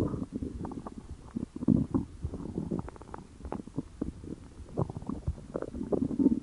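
A person's stomach growling and gurgling: a run of quick irregular bubbling pops, with louder low rumbles about two seconds in and again near the end.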